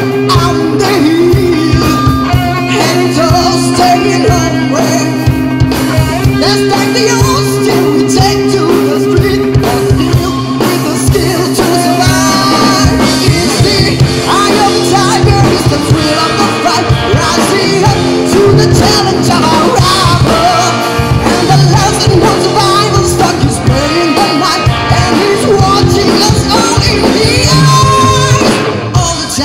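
Live rock band playing loud: a male lead singer over electric guitars, bass guitar and drum kit, with a brief drop in level near the end.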